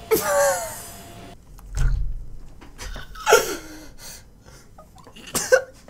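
A man's breathless laughter: high, wheezing squeals and gasps in three main bursts, with a low thump about two seconds in.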